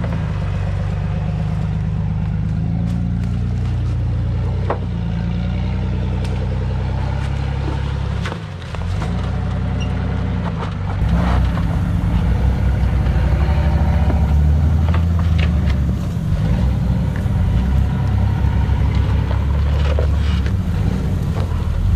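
Jeep engine running at low revs as it crawls over rocks, with scattered knocks. About eleven seconds in it gets louder, the throttle coming on and off unevenly.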